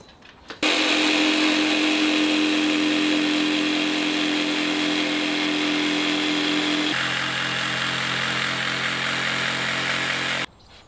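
DeWalt 18V cordless jigsaw cutting through 12 mm MDF board, the motor and blade running steadily from a sudden start. Its pitch shifts about seven seconds in, and it stops abruptly near the end.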